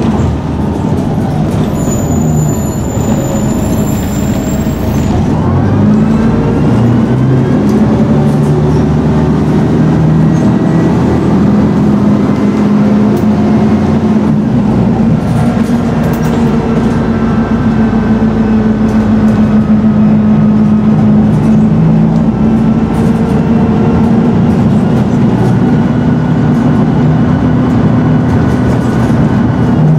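Scania N113DRB double-decker bus's diesel engine running on the move. The engine note steps up and down several times in the first few seconds, with a faint gliding whine, then holds a steady pull with a deeper rumble through the rest.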